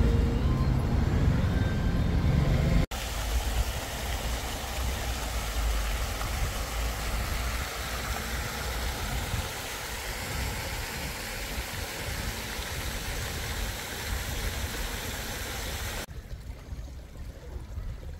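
Outdoor city street ambience dominated by road traffic noise: a heavy low rumble at first, cut off suddenly about three seconds in to a steady wash of noise, which cuts again to a quieter background near the end.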